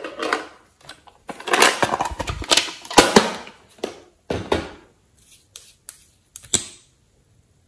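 Handling noises from a plastic lip gloss tube: irregular rustling, taps and clicks, with a few sharp clicks near the end as the cap and wand are pulled out.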